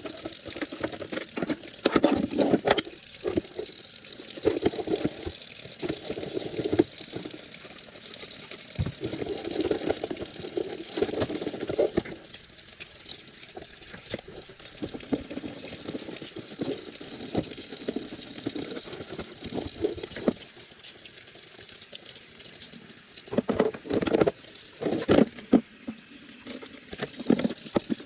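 Tap water running into a sink and splashing unevenly, with occasional knocks, as a vacuum cleaner's filter is rinsed under it.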